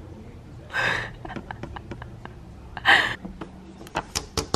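A person's two short, breathy exhalations close to the microphone, about a second in and near three seconds, then a quick run of sharp clicks near the end.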